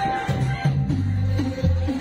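Loud dance music with a heavy bass line.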